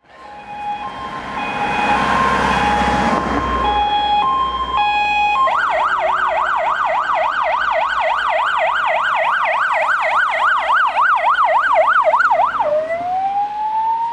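Emergency vehicle sirens. First a two-tone hi-lo siren sounds over the noise of a passing vehicle. About five and a half seconds in it switches to a fast yelp sweeping up and down about three times a second, and near the end it drops and turns into a slow rising wail.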